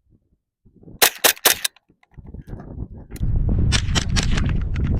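HK MP5 .22LR rimfire rifle firing rapidly, with about four quick shots a second in and a further run of sharper reports near the end. The string ends in a stoppage that the shooter identifies as a double feed. A loud low rumble sets in about three seconds in.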